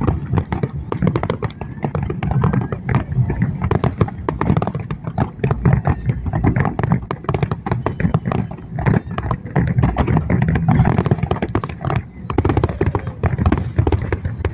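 Fireworks display: a rapid, unbroken run of cracks and pops over low booming.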